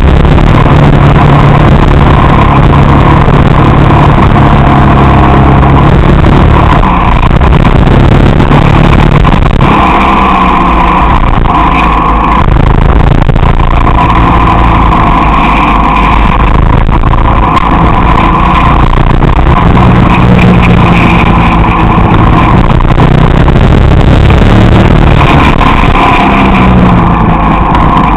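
Vehicle engine running loud and continuous, its pitch rising and falling as it is driven through a series of bends, heard through a camera microphone.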